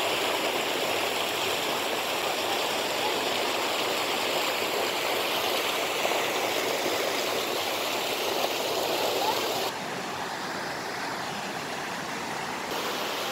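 Shallow creek flowing over rocks, a steady rush of water. It turns quieter and duller for about three seconds near the end.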